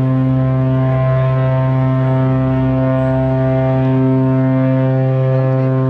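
A ship's horn sounding one long, steady blast at a single low pitch, as a ship departs.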